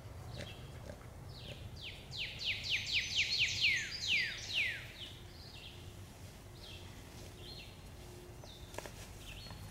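A wild bird singing a run of about a dozen high, down-slurred whistled notes that come quicker in the middle and slow again at the end, followed by a few fainter short chirps. Near the end there is a single sharp click.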